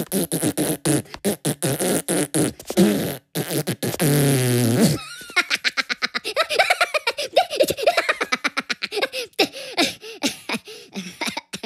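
Cartoon fart noises mixed with the Minions' high-pitched, squeaky giggling; a long, low fart a little after four seconds in, then hysterical laughter.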